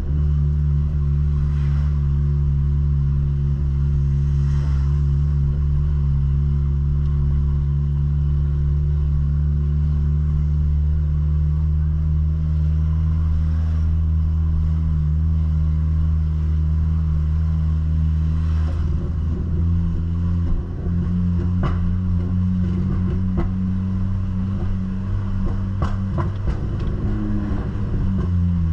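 Ford New Fiesta's exhaust, fitted with a diffuser ahead of the mufflers, droning with a steady low note while driving. About two-thirds in, the note steps up and turns rougher, with a few sharp clicks, then drops back near the end.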